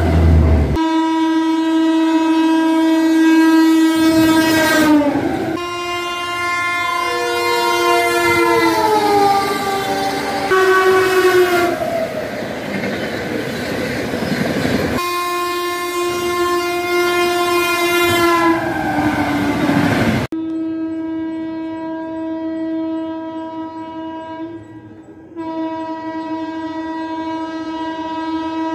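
Indian Railways locomotive horns sounding in long, loud blasts as trains run through at speed. The pitch drops as a train passes, and a stretch of rushing wheel noise comes in the middle. Several passes are cut together, so the horn stops and restarts abruptly.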